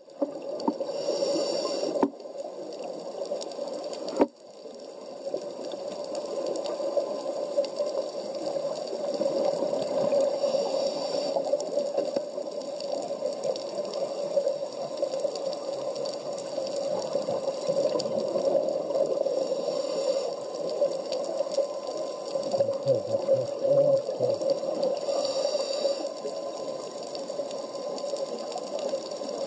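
Muffled underwater sound picked up through a camera housing during a scuba dive: a steady watery rush, with four hissing bursts of a diver's exhaled regulator bubbles spaced six to nine seconds apart. Two sharp knocks of the camera rig being handled come about two and four seconds in.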